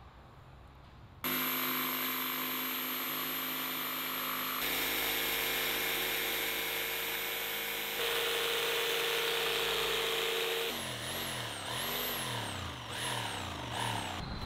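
Makita jigsaw starting about a second in and cutting plywood, running steadily. Near the end its pitch rises and falls repeatedly as it follows a curve.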